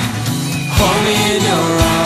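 Background song: a voice singing over guitar and other instruments, with a low beat about once a second.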